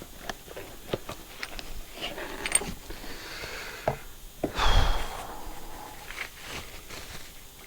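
Scattered small clicks and light knocks of metal and plastic brushcutter parts being handled on a bench, with a short breathy rush about halfway through.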